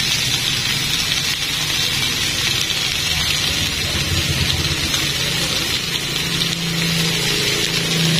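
Chicken pieces and marinated fish sizzling on a ridged grill pan: a steady hiss, with a low hum underneath.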